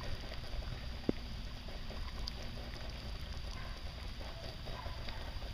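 Wind rumbling on the microphone over the steady hiss of a lawn sprinkler's spray, with one sharp click about a second in.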